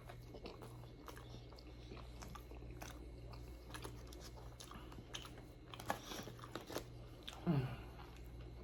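Close-miked chewing and biting of food, with small wet clicks and crunches. A short hum-like voice sound falls in pitch about seven and a half seconds in, the loudest moment.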